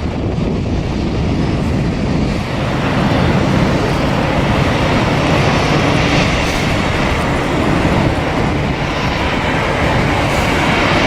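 Loud, steady rumbling roar of a large passing vehicle, swelling about two and a half seconds in and holding.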